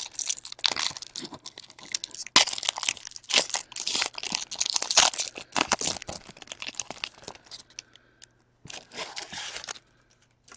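A foil baseball card pack being torn open and its wrapper crinkled by hand, in irregular crackling bursts that die away in the last couple of seconds.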